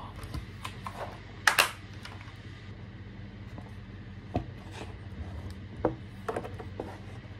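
A tablet in a folio case handled on a wooden table: scattered knocks and taps as the cover is opened and folded back into a stand, the loudest about a second and a half in. A low steady hum runs underneath.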